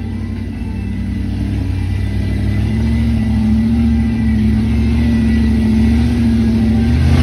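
Jeep Wrangler rock crawler's 4.8-litre LS V8 running steadily as the rig crawls up a rock ledge, growing louder about two and a half seconds in.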